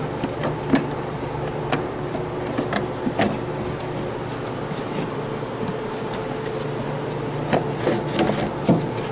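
Scattered metallic clicks and knocks of hand tools on bolts and brackets under a car, with a cluster of them near the end, over a steady hum.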